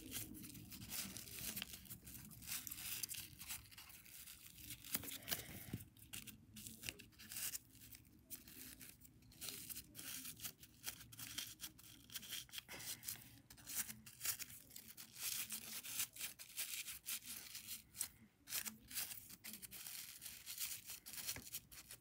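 Crinkling and crackling of plastic wrap and tissue paper as a homemade simple dimple fidget toy is squeezed and poked: many faint, irregular clicks.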